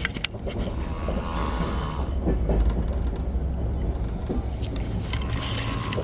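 A man snoring in a train's sleeper berth: two long snores about four seconds apart, over the steady rumble of the moving train.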